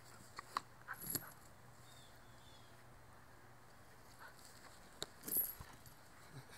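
Chained American pit bull jumping about: scattered short rattles and clinks of its metal chain, the loudest about five seconds in.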